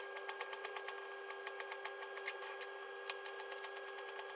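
Kitchen knife chopping courgette into chunks on a wooden chopping board: quick, even taps, about seven or eight a second, over a steady faint hum.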